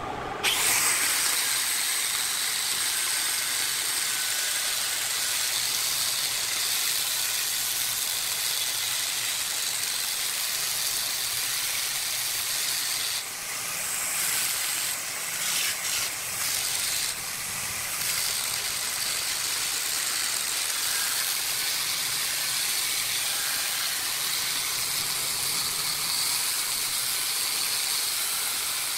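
Angle grinder with a sanding disc starting up and running with a steady high whine and hiss as it sands a wooden vase turning on a lathe. The level dips briefly a few times around the middle.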